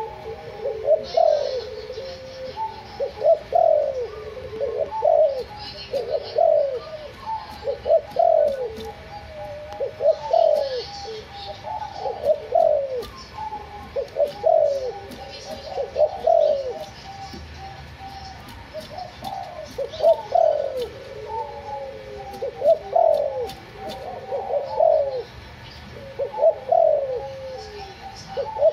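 White 'backspot' derkuku dove cooing over and over, short phrases of falling coos coming about every one to two seconds, the lively repeated calling the breeder calls gacor and cetetan.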